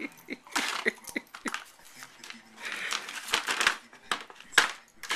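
Hard plastic cat track toy being knocked and shoved across a wooden floor by two puppies nosing into it: a run of irregular sharp clicks and clacks, with the ball rattling in the track, some scuffling in the middle and one sharper knock near the end.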